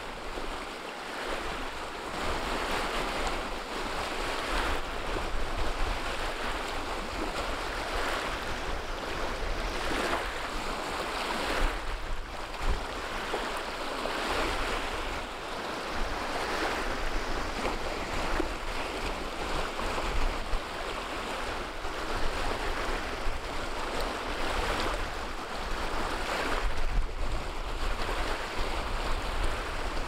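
Choppy wind-driven waves washing onto a pebble shore in a continuous wash, surging every second or two. A low wind rumble buffets the microphone underneath.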